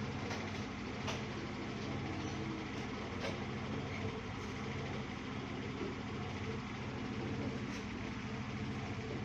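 An engine idling steadily with a low, even hum, with a few faint clicks.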